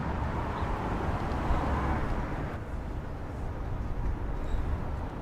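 Steady low background rumble with a hiss above it; the hiss drops away about two and a half seconds in.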